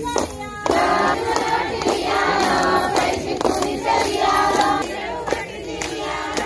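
A group of women singing a Bathukamma folk song in chorus, with hand claps keeping time; the full chorus comes in under a second in.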